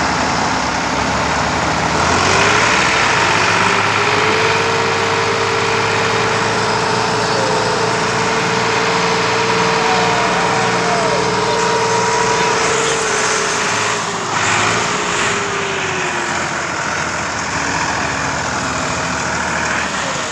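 Massey Ferguson diesel tractor engines working hard under load, one tractor helping tow another with a full trolley. The engine pitch rises about two seconds in, holds steady, and drops back around fifteen seconds in.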